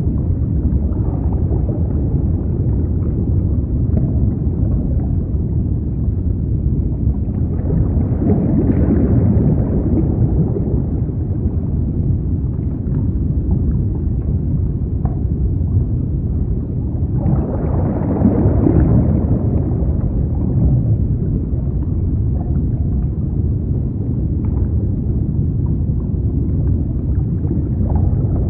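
Steady low underwater rumble with a gurgling, wash-like texture, swelling louder twice, about eight and eighteen seconds in.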